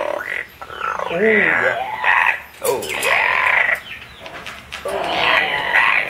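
Amazon parrot making a string of vocal noises: about five separate calls, each rising and falling in pitch.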